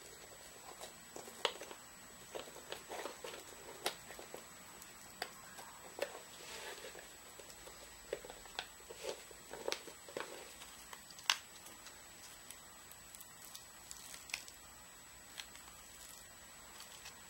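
Hands handling 3D-printed PLA plastic crossbow parts while stringing the bow: scattered light clicks and taps of hard plastic with some rustling of the string, busiest in the first ten seconds or so and sparser after.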